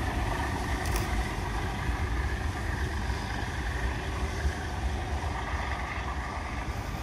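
Steam-hauled train running in the distance along the line, a steady low rumble mixed with wind on the microphone.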